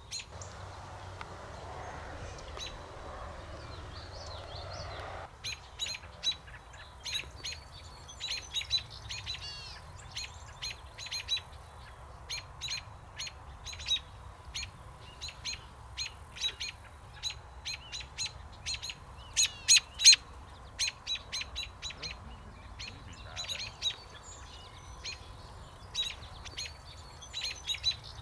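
American robins giving many short, sharp alarm calls at irregular intervals, the loudest cluster a little past the middle, as they mob a young American kestrel.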